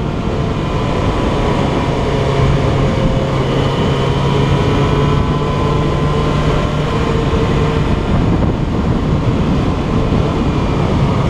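Riding on a Yamaha XJ6 motorcycle, heard from a helmet-mounted camera: steady wind rush and tyre noise on wet asphalt over the inline-four engine's low, even hum at a steady cruise.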